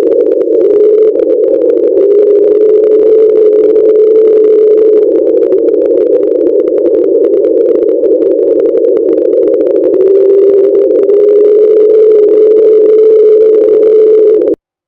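A loud steady hum with a slightly wavering pitch over a narrow band of hiss, cutting off suddenly near the end.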